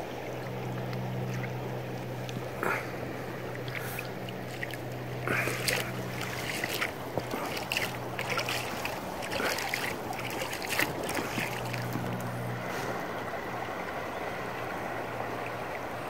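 River water lapping and splashing against the side of a small inflatable boat as it drifts, with a steady low hum underneath. The splashing is busiest in the middle stretch.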